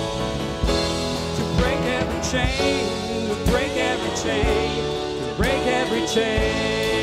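Worship band music: a singer's voice over sustained chords, with a drum hit about once a second.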